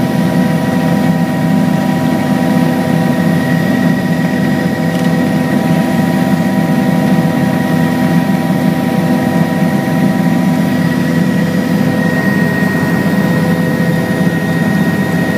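Helicopter engine and rotor noise heard on board in flight: a loud, steady, low drone with a steady high whine over it.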